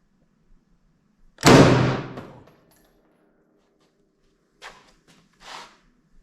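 A single gunshot about a second and a half in, echoing and dying away over about a second, followed by two much softer knocks a few seconds later.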